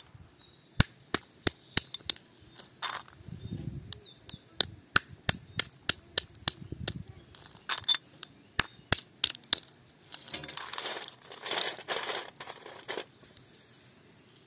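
Walnuts being cracked with a hand-held stone against a stone anvil: a long string of sharp, irregular knocks. Near the end comes a few seconds of crackling as the broken shells are pulled apart by hand.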